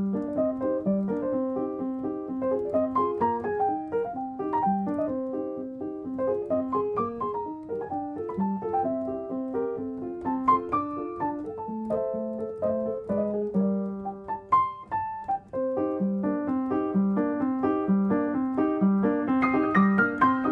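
Piano music: a steady run of single notes with an even pulse, growing fuller near the end.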